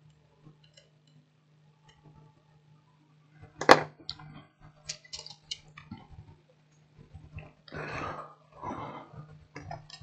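Small tools and parts handled on a workbench: one sharp knock about four seconds in, then scattered light clicks and rustling, over a faint low steady hum.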